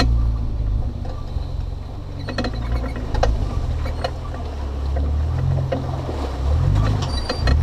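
A 2009 GMC Yukon XL's V8 engine running as the truck crawls over a rough dirt trail: a deep, steady drone that wavers up and down near the end, with scattered knocks and rattles from the bumps and stones.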